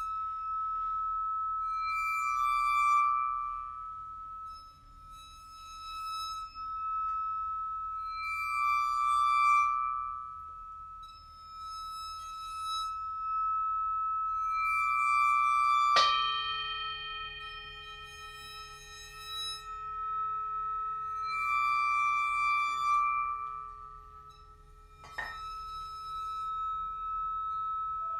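Experimental music of bowed singing bowls and crystal glasses: a high ringing tone that swells and fades every few seconds. About halfway through a sharp struck note sets several lower tones ringing on, and a second strike comes near the end.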